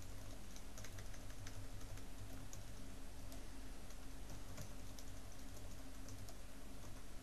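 Typing on a computer keyboard: a run of irregular keystroke clicks, over a steady low hum.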